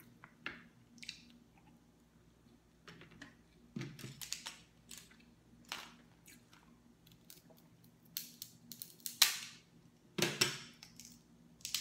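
Dungeness crab shell being cracked and picked apart with a metal utensil: scattered clicks, cracks and scrapes, the loudest two cracks about nine and ten seconds in.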